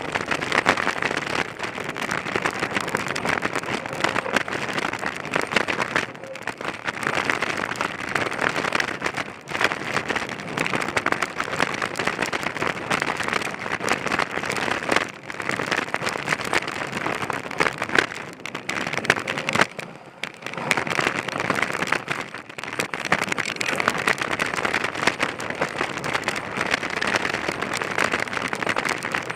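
Mountain bike tyres rolling fast over dirt and rock on a trail descent, a continuous gritty crunch with a few brief lulls.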